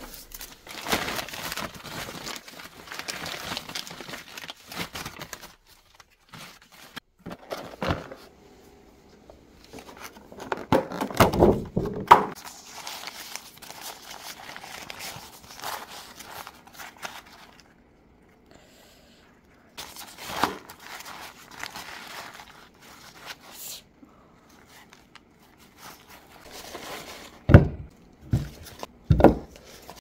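Crinkling and rustling of packaging being handled, with a few thuds, loudest about eleven seconds in and again near the end.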